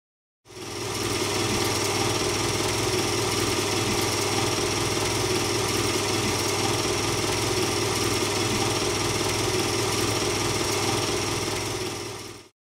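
Steady mechanical running hum and whir with a low drone and hiss, fading in just after the start and fading out near the end.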